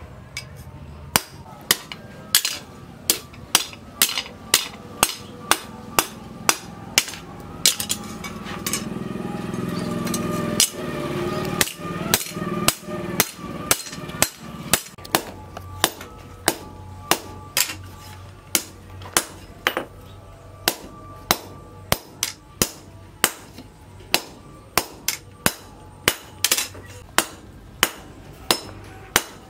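Hammer blows on a steel blade, cut from a rusted tractor plough disc, on a post anvil: steady strikes about twice a second, each with a short metallic ring. A lower background noise swells for a few seconds around the middle.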